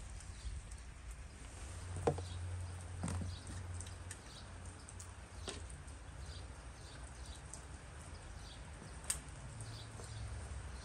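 Scattered faint knocks and clicks of split firewood logs being pulled from a stacked woodpile, with one sharper knock near the end, over a low steady rumble.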